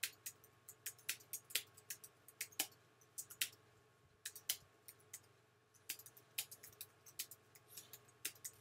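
Typing on a computer keyboard: irregular key clicks a few a second, with brief pauses, over a faint steady hum.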